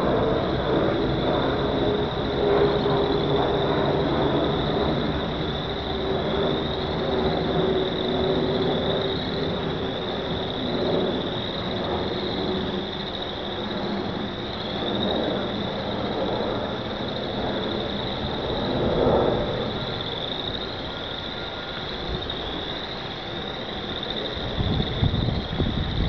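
A chorus of pond frogs calling together, a dense, steady high-pitched chorus of repeated calls, with some lower calls mixed in and a steady low rumble underneath.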